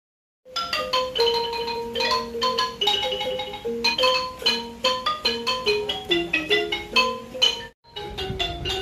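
Music: a quick melody of struck notes on a xylophone-like mallet instrument, starting after a moment of silence. It breaks off briefly near the end and then goes on with a deeper rumble underneath.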